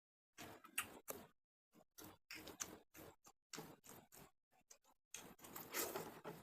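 Close-miked chewing and wet mouth sounds of someone eating: irregular smacking clicks with short pauses between them, and a longer, busier spell of chewing near the end.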